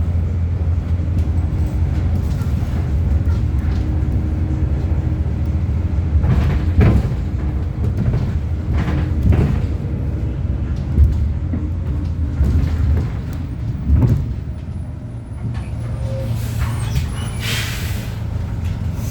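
City bus running, heard from inside the cabin: a steady low engine drone with knocks and rattles from the body. A hiss of compressed air comes near the end.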